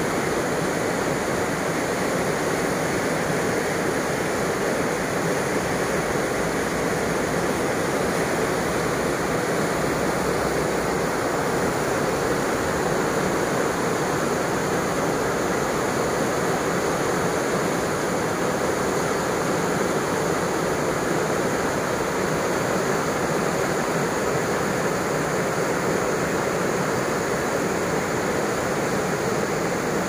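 Fast mountain river rushing over rapids and boulders: a steady, unbroken wash of white water.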